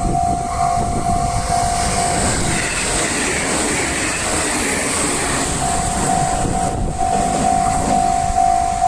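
A Japanese level-crossing warning bell rings with a steady electronic tone, about two strokes a second, as a train crosses. For a few seconds in the middle the wheel-and-rail noise of the passing train covers the bell.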